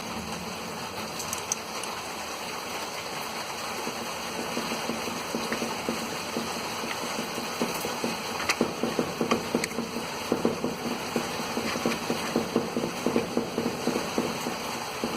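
Steady rain falling, with a run of light, irregular clicks and taps in the second half.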